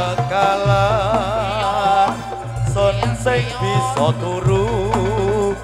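Live Reog campursari band music: an ornamented, wavering lead melody over steady bass notes, in a pause between sung lines.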